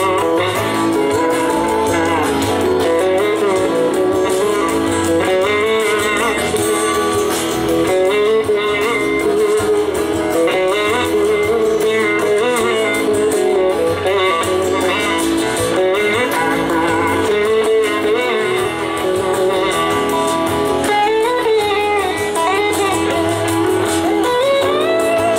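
Live band music, a slow blues-soul number: an electric slide guitar plays a gliding lead line over electric bass, drums and rhythm guitar, sliding upward near the end.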